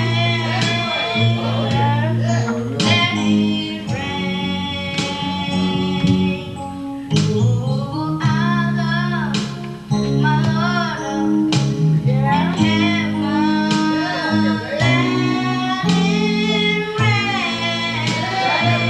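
Gospel song sung by a solo voice over guitar accompaniment, the voice gliding between long held notes above steady plucked chords.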